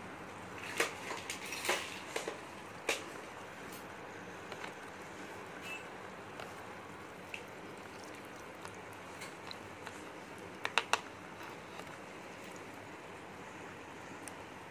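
Chopsticks stirring and lifting noodles in soup in a plastic food tray, with a few sharp clicks against the tray: a handful about a second in and a quick cluster near eleven seconds, over faint steady hiss.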